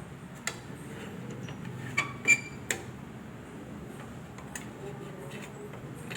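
Hard plastic and metal parts of a small-form-factor desktop PC case clicking and clacking as they are handled and snapped into place, a few sharp clicks in the first three seconds, the loudest about two and a half seconds in.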